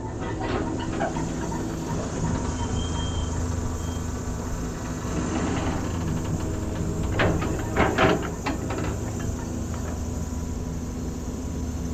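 Heavy diesel engine running steadily, with a cluster of metallic clanks and rattles about seven to eight and a half seconds in.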